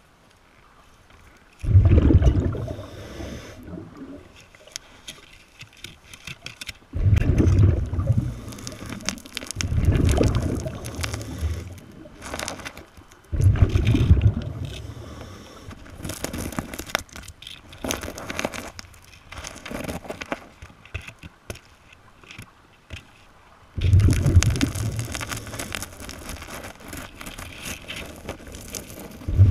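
Scuba regulator exhaust bubbles heard underwater: five rumbling bursts of bubbling, each a second or two long and a few seconds apart, one per exhalation. Between them comes fine crackling and scraping as a gloved hand fans the sand and pebbles.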